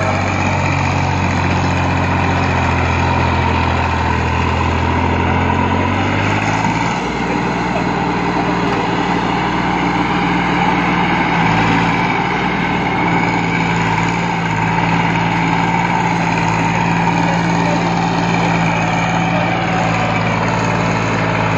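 Massey Ferguson 9500 tractor's three-cylinder diesel engine running steadily under load as it pulls a three-bottom plough through the soil. Its note changes about seven seconds in, then holds steady.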